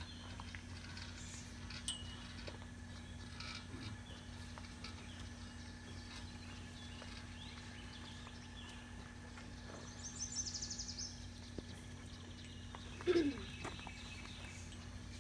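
Quiet outdoor ambience with a faint steady hum and scattered faint bird chirps, including a quick rapid trill about ten seconds in. A short low sound falling in pitch, the loudest thing here, comes about thirteen seconds in.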